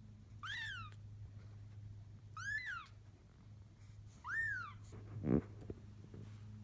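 Young kitten mewing three times, each a high, thin call that rises and falls, about two seconds apart. A short, louder low thump follows, over a steady low hum.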